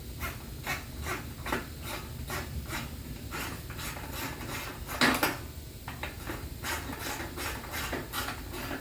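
Hand ratchet wrench clicking in uneven strokes, about three clicks a second, with one louder clack about five seconds in.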